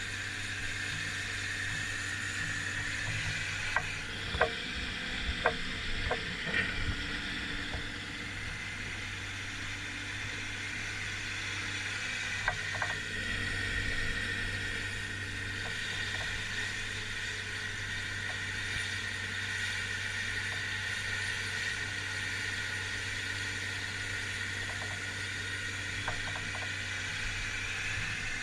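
Old Komatsu hydraulic excavator working: the engine runs steadily under a high hydraulic whine, with a few sharp metallic clanks from about four to seven seconds in, again about twelve seconds in and near the end.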